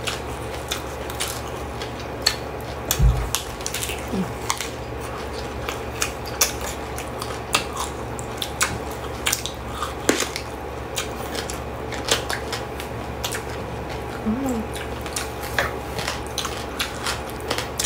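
Close-up eating sounds: crunching and chewing of raw herbs and vegetables, with many scattered sharp clicks and crackles over a steady low hum.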